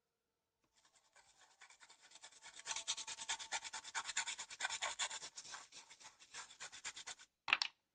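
Toothbrush scrubbing rapidly back and forth over the soldered joints of a keyboard circuit board wet with alcohol, cleaning off flux residue. The scrubbing starts softly, builds up, and stops about seven seconds in, followed by one short scrape.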